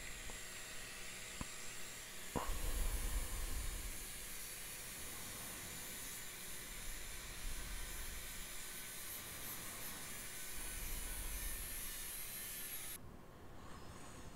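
Angle grinder with a flap disc sanding rust off a steel radio case down to bare metal: a steady abrasive hiss with a faint motor whine, stopping abruptly near the end.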